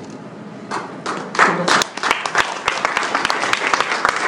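Audience applauding: a few scattered claps at first, then dense, steady applause from about two seconds in.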